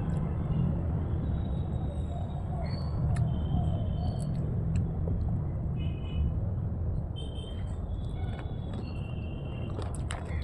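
Outdoor ambience: a steady low rumble with short high chirps now and then, and a few clicks near the end.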